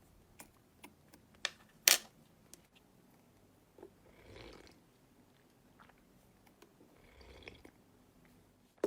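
Slime being handled and pressed: scattered small clicks and pops, the sharpest about two seconds in, with a few soft squishes between them.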